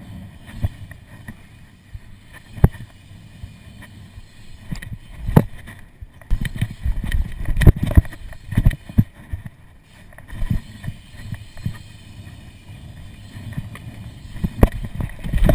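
A BMX bike ridden over concrete skatepark ramps: tyres rolling, with wind rumbling on a body-mounted camera's microphone, broken by several sharp knocks and clunks from the bike.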